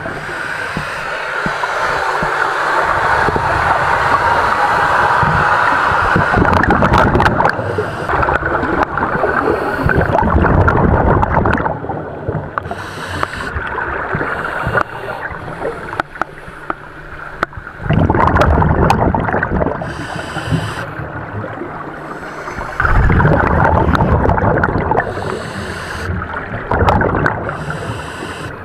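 A scuba diver breathing underwater through a regulator: bursts of hiss on each inhalation alternating with rumbling, gurgling surges of exhaled bubbles, repeating every few seconds.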